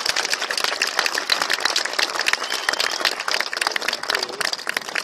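Crowd applauding, a dense, steady patter of clapping.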